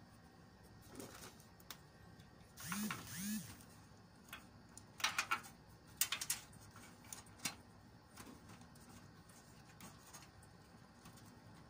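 A plastic cable tie is zipped tight around computer cables: two quick buzzing zips about three seconds in, the pitch rising and falling with each pull. A cluster of sharp plastic clicks follows a couple of seconds later.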